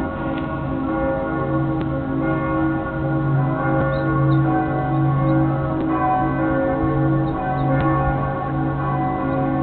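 Many church bells ringing together at once, a dense, steady wash of overlapping tones: the city's bells ringing the noon hour.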